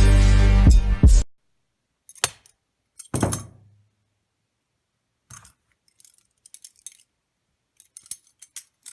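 Background music that cuts off about a second in, followed by scattered short metallic clicks and clinks: a butterfly knife's handles clacking against each other and the blade as it is flipped.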